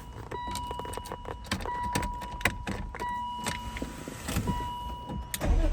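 Keys rattling and clicking at a BMW Z3's ignition over a steady high electronic warning tone that breaks off and resumes every second or so. Near the end the starter begins turning the engine over.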